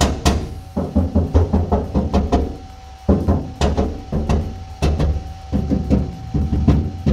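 Rapid runs of hand knocking on the bare sheet-metal back wall of a square-body Chevy crew cab, several knocks a second with short pauses between runs. The undeadened panel booms and rings; this is the untreated state, before Kilmat sound-deadening mat is applied.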